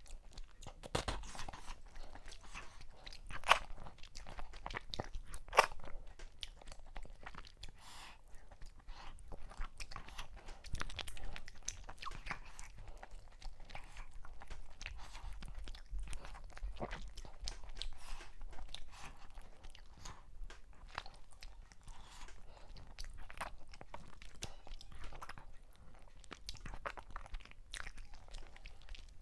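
Close-miked eating sounds of a meal of whole mackerel, fufu and okra soup eaten with the fingers: chewing, lip smacks and finger sucking as a steady run of short wet clicks. Two of the clicks are louder, about three and a half and five and a half seconds in.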